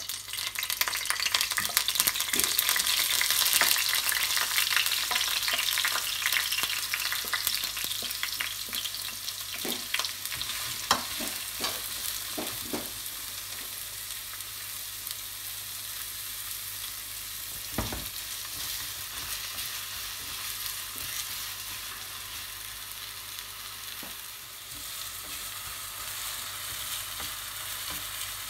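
Chopped onions and green chillies hitting hot oil in a small metal pan: a loud sizzle starts at once, then slowly dies down as they are stirred with a wooden spatula. Scattered knocks of the spatula against the pan, one sharper near the middle.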